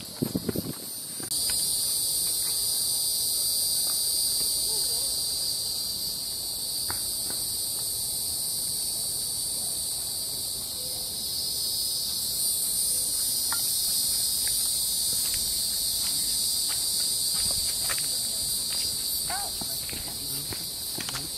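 A steady, high-pitched chorus of insects shrilling in the surrounding woods, setting in about a second in and holding on. Faint footsteps on the trail can be heard under it in the second half.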